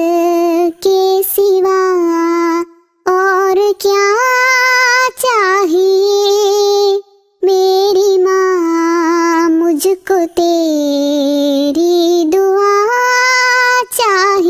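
A child's voice singing a slow melody in long held notes, the phrases separated by brief pauses; no words are made out.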